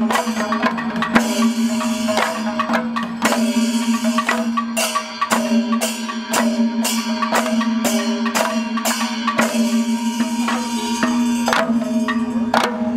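Instrumental music: a steady drone under quick, regular percussion strikes.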